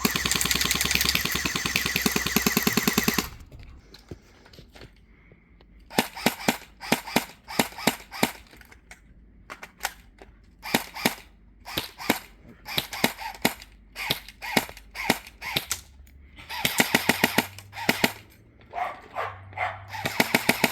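Battery-powered electric airsoft rifle firing. It opens with a fast full-auto burst of about three seconds, then after a pause fires single shots and short bursts, with another rapid burst near the end.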